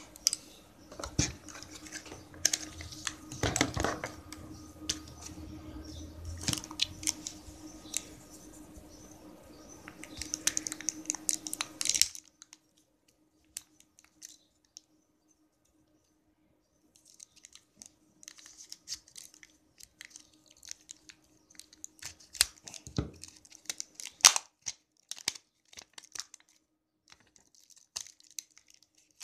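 Plastic wrap being peeled and torn off a pack of lithium-ion cells from a power bank: irregular crinkling, tearing and clicks. A faint steady hum runs under the first half and cuts off suddenly, and the handling goes on more sparsely after it, with one sharp click near the end.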